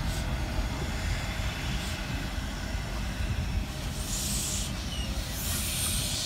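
Narrow-gauge steam locomotive running slowly over a low rumble, letting off two hisses of steam, one about four seconds in and a longer one about a second and a half later.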